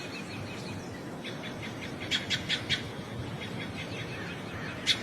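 A bird chirping in quick runs of short, sharp notes, about five a second, over a steady background hiss. The loudest run comes near the end.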